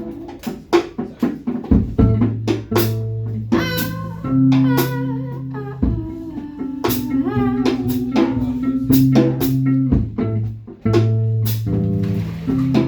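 Live band playing an instrumental passage: guitar carrying a wavering melody over held bass-guitar notes and steady drum-kit hits, with no singing.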